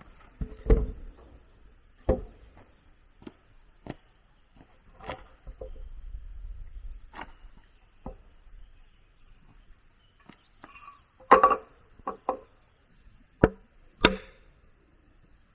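A hand tool chopping and knocking on wood in a dozen or so separate strikes at uneven spacing, with a cluster of the loudest blows about eleven seconds in.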